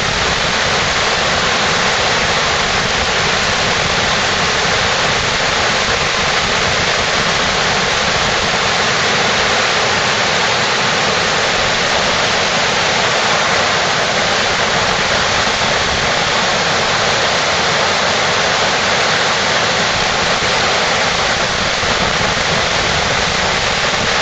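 Waterfall: water pouring and cascading steadily, a loud, even rush of noise that does not change.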